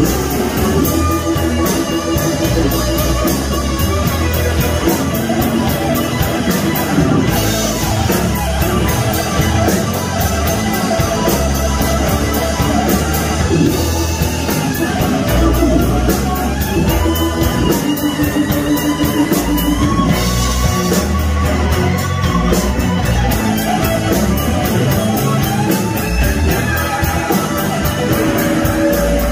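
Live band playing: electric guitar lead with wavering, bent notes over electric bass and a steady drum beat.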